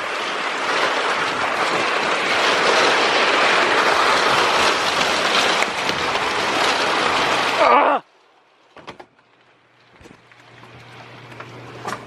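Derecho wind gusts and rain blasting against the microphone in a loud, rushing roar that cuts off abruptly about eight seconds in. A much quieter room follows, with a faint low steady hum and a couple of faint clicks.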